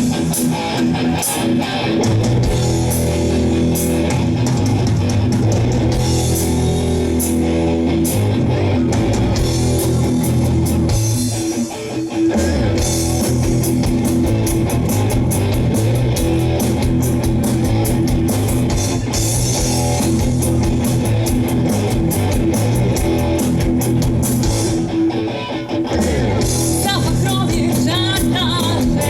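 Live rock band playing hard and loud: electric guitars, bass and drum kit, with a short break about twelve seconds in.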